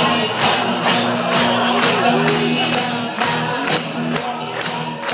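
Music with singing over a steady beat.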